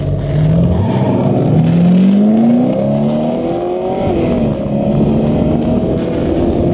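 1970 Oldsmobile F-85 W31's 350 V8 at full throttle off the drag-strip start line, rising in pitch as it accelerates. About four seconds in the pitch drops at an upshift, then climbs again.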